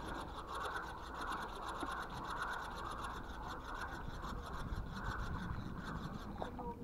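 Spinning reel cranked steadily by hand, its gears and line roller giving a fast, even ticking whirr as a hooked fish is reeled in. It stops shortly before the end.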